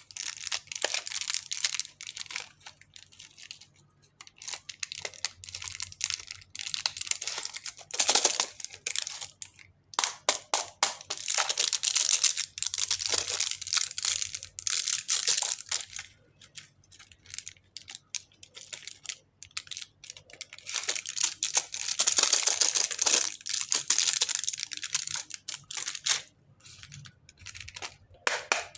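Plastic packaging crinkling and tearing as it is handled and opened, in repeated stretches of dense crackling with sharp clicks and brief pauses between them.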